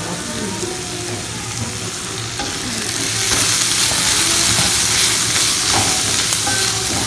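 Onion and spice masala sizzling in hot oil in a pan while being stirred; the sizzle gets louder about three seconds in.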